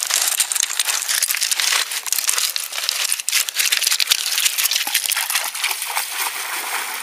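Footsteps crunching on loose river pebbles, the stones grinding and clicking against each other underfoot in a dense, steady crackle.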